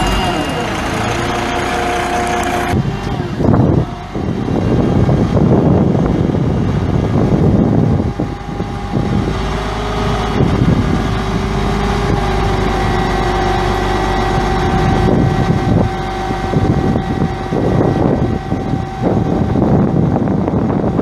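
The 1996 Ford F8000's Cummins ISC 8.3-litre six-cylinder turbo diesel running steadily, with a steady whine over the engine note.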